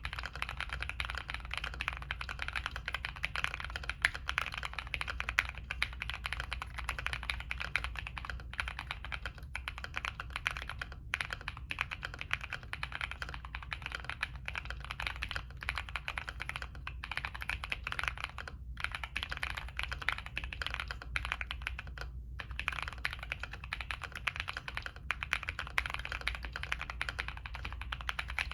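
Continuous fast typing on a Monsgeek M1 mechanical keyboard with Zenclack Pleiades switches on a POM plate: a dense stream of keystroke clacks, broken by a few brief pauses.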